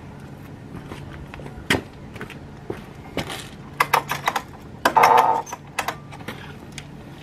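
Scattered metallic clinks and knocks of hand tools and metal parts being handled. They come in a cluster about four seconds in, with a louder rattling scrape about five seconds in.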